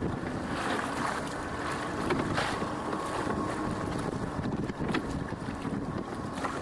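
Wind buffeting the microphone over water washing around a small open boat under way, with a few short knocks and a faint steady hum underneath.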